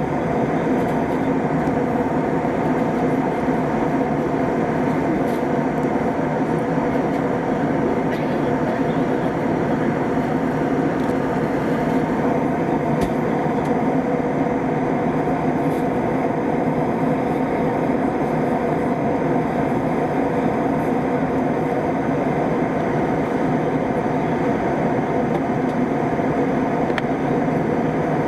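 Airbus A320 cabin noise: the steady drone of the jet engines and airflow heard inside the cabin, with a few steady humming tones under the rush.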